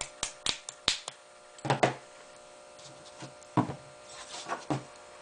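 Small steel parts of a Ruger 10/22 trigger pack clicking and knocking as a pin is worked through it to seat the magazine release and bolt release. About half a dozen quick sharp clicks come in the first second, then a few duller knocks spaced out over the rest.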